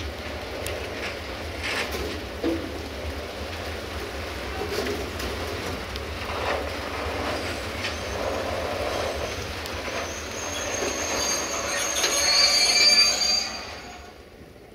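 A train rolling on rails, with scattered wheel knocks over a steady rumble. From about ten seconds in, a high-pitched wheel squeal at several pitches grows to the loudest point, then the sound drops away sharply near the end.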